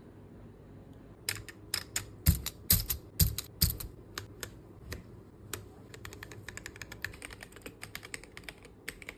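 Mechanical keyboard fitted with ABS cat-paw keycaps being typed on. First come a few separate key presses, some landing with a deeper thud, then quick steady typing from about six seconds in.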